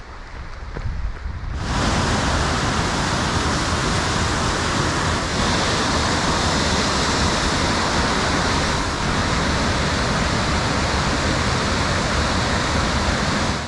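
Waterfall, white water pouring down a rocky gorge: a loud, steady rush that starts abruptly about two seconds in.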